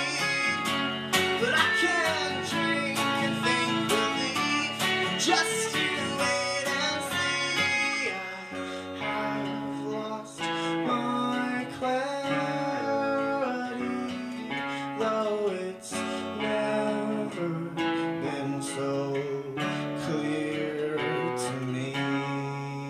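Steel-string acoustic guitar strumming chords with an electric guitar playing lines over it in a live duo. The playing turns sparser and quieter about eight seconds in and begins to die away at the very end.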